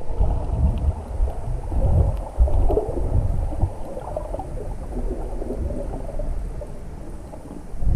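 Muffled underwater water noise through a waterproof camera housing: low rumbling surges of moving water that swell and fade every second or so. Near the end a louder rush of water begins.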